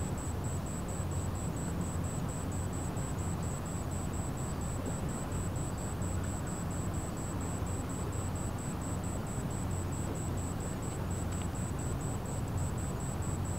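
A large car ferry's engines running as a steady low rumble, with no change in speed or pitch. A faint, high, regular ticking repeats about four to five times a second throughout.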